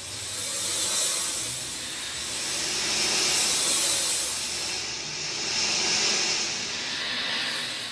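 Rain falling: a dense hiss that swells and fades in waves every two to three seconds.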